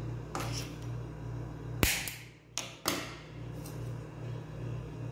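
Hand lighter clicking to light a gas stove burner: one sharp click just under two seconds in, then two lighter clicks, as the burner catches.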